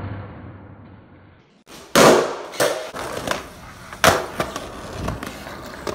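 Skateboard on concrete: a board's clatter and wheels rolling fade out. Then comes a run of sharp board impacts and clacks, the first the loudest, spaced about half a second to a second apart over wheels rolling on pavement.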